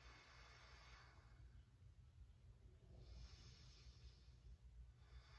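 A woman's slow, deep breaths, faint: three soft breaths about a second long each, with pauses between them, over a low steady room hum.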